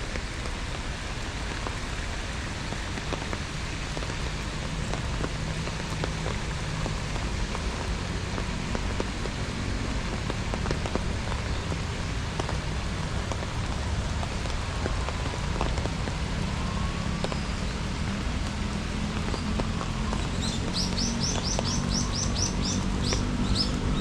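Steady rain falling, with many individual drops ticking close by. About twenty seconds in, a bird gives a quick run of short, high chirps.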